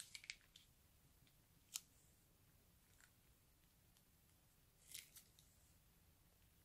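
Faint, sparse crackles and clicks as slime is squeezed out of a plastic piping bag: a few at the start, one near two seconds in, another near three seconds, and a small cluster about five seconds in.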